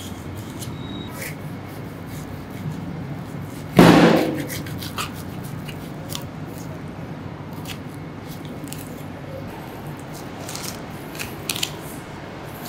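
Butcher's knife scraping and cutting along a beef rib section, with small clicks as the blade catches on bone and the table, over a steady room hum. About four seconds in, one loud knock rings out and fades.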